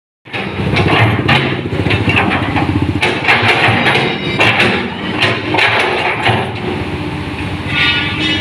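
Komatsu PC200 excavator running: a steady diesel engine with repeated knocks and clanks over it.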